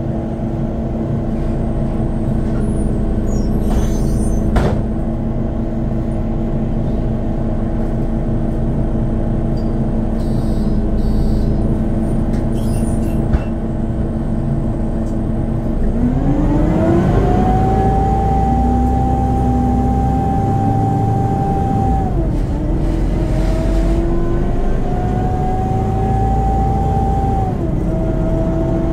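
Inside a Mercedes-Benz Conecto articulated city bus: a loud, steady howl from the engine's cooling fan over the running engine, a sign of the bus's cooling fault that kept the fan howling all day. About halfway through the pitch rises as the bus pulls away, dropping back and rising twice more as it gathers speed.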